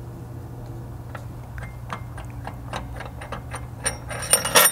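Bolt being unscrewed by hand from a Polaris RZR XP Turbo primary clutch, with light irregular ticks of metal on metal. A short burst of metallic clinking comes near the end as the bolt and washers come free.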